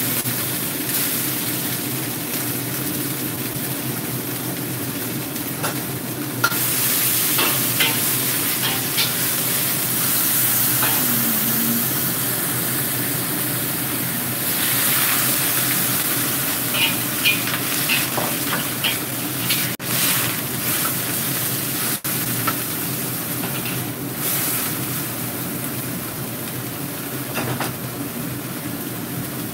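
Mung bean sprouts sizzling as they stir-fry in a hot wok, with a metal spatula scraping and tossing them against the pan. The sizzle is steady and loud, and the spatula strokes come through as short scrapes and clicks.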